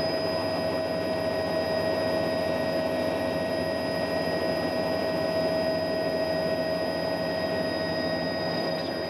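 Steady drone of a helicopter in flight: a rushing noise with constant whining tones over it, unchanging throughout.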